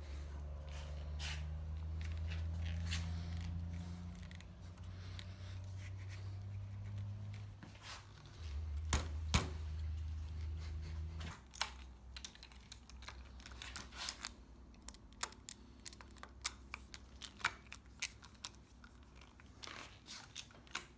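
Scattered clicks and taps of hand tools and handlebar parts being handled while the grips and switch housings are fitted back on. A low steady hum sits under the first half and stops about eleven seconds in.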